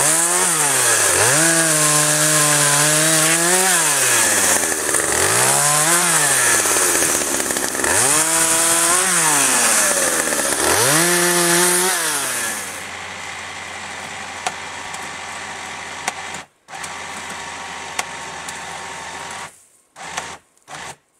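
Small two-stroke chainsaw revved in about five rising-and-falling bursts, then dropping to a steady idle about 13 seconds in, with breaks near the end.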